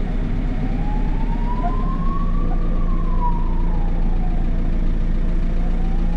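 JCB 3CX backhoe loader's diesel engine running steadily, heard from the cab. Over it a thin tone slowly rises in pitch, falls back about halfway through, and starts rising again near the end.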